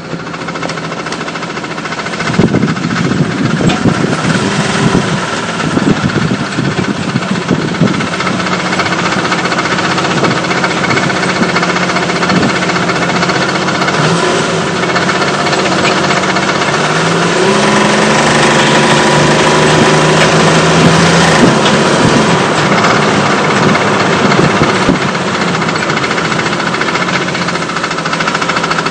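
1998 Jeep Cherokee XJ engine running with a rapid, terrible clicking over the engine note. The engine speed rises briefly about two-thirds of the way through, then drops back.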